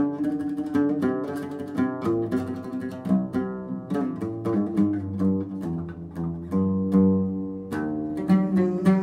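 Instrumental background music: a plucked string instrument playing a run of short notes over a sustained low accompaniment.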